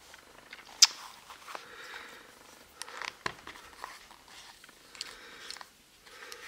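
Small plastic LEGO pieces clicking and knocking as they are handled and pressed together, in scattered light clicks with a sharper one about a second in.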